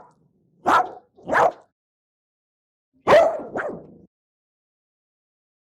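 Angry dog barking: two short sharp barks, then after a pause a longer double bark that trails off.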